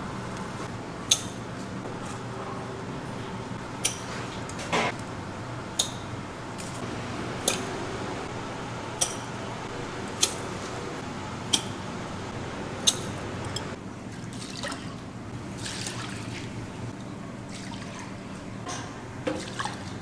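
Kitchen work with liquid: sloshing and dripping, with a series of sharp clinks about every second and a half, then softer handling noises near the end, over a steady low hum.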